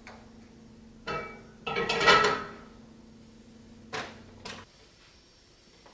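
Kitchen clatter of metal cookware and utensils: a short ringing clank about a second in, a louder clatter around two seconds, then two lighter knocks. A low steady hum underneath stops a little after four and a half seconds.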